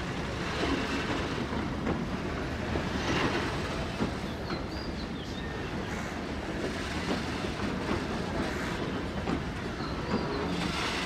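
Freight train of bogie oil tank wagons rolling through the station, its wheels clattering over the rail joints with scattered knocks over a steady rumble.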